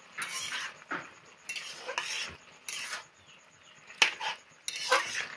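Metal spatula scraping and stirring pumpkin greens in a metal kadai: about six scraping strokes, some starting with a sharp clink of metal on metal.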